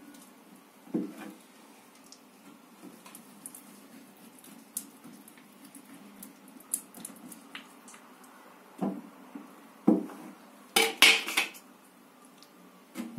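Uncapping knife slicing wax cappings off a wooden honeycomb frame: scattered scrapes and knocks against the frame, then a loud metallic clatter about two seconds before the end.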